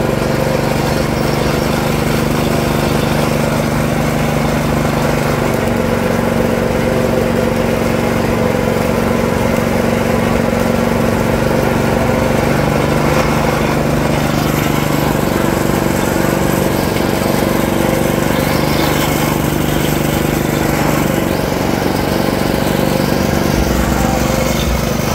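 Motor-driven sugarcane juice press running with a steady mechanical hum, its steel rollers crushing cane stalks fed through by hand.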